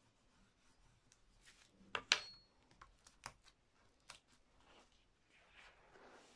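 A metal spoon clinks sharply twice as it is set down on the table about two seconds in, followed by a few light taps; near the end, paper rustles softly as the freshly burnished print is peeled off the inked lino block.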